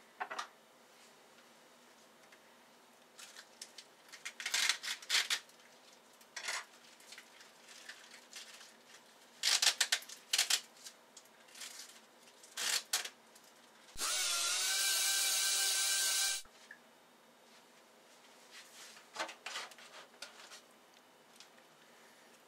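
Food being prepared at a kitchen sink and counter: scattered rustling, scraping and light knocks as things are handled. About two-thirds of the way in, a loud steady rushing, whirring sound starts, rising briefly in pitch as it begins, and cuts off abruptly after about two and a half seconds.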